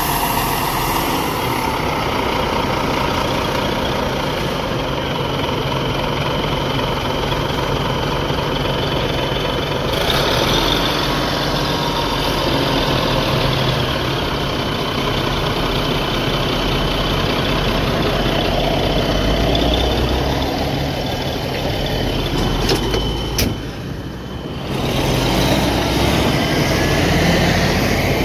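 Heavy diesel engines of a Caterpillar 980C wheel loader and nearby dump trucks running steadily under work, with a thin high whine through the middle stretch.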